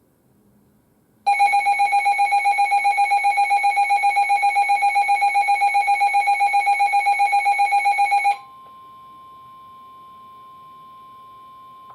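An emergency weather-alert tone sequence: a loud electronic alarm pulsing rapidly, about seven beeps a second, for about seven seconds, then cutting off to a quieter steady single tone, the NOAA Weather Radio warning alarm tone, which signals that a warning message is about to be read.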